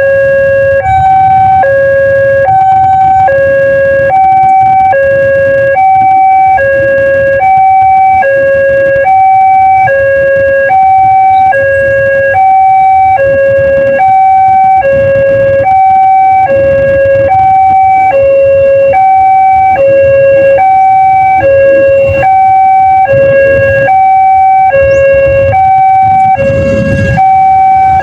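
Railway level-crossing warning siren of the Daop 2 Bandung type, sounding a steady two-tone hi-lo pattern, alternating between a higher and a lower tone about once a second. A low rumble runs underneath and grows louder near the end.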